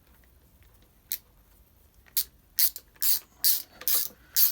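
Ratchet wrench working the bolts of a motorcycle clutch case cover: one click about a second in, then quick repeated ratcheting strokes about twice a second from about two seconds in.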